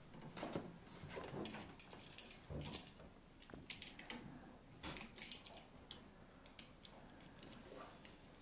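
Faint clicks, rattles and rustling of a screwdriver, switch and wires being handled at an electrical wall box, busiest in the first five seconds or so and sparser after.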